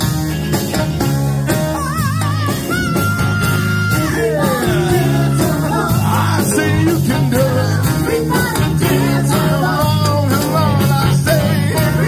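Live band playing with bass guitar and drum kit under lead vocals. About two seconds in a singer's note wavers with vibrato, then is held steady for about a second.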